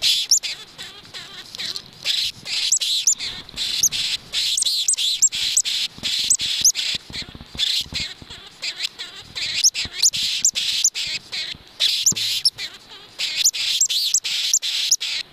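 Norway lemming giving rapid runs of sharp, high-pitched squeaks, several a second with short pauses between runs: the threat calls of a lemming agitated by an intruder.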